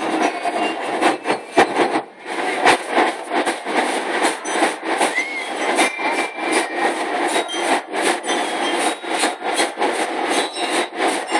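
School marching band's drum section beating a steady marching rhythm, with a few short bell-lyre notes ringing over the drums.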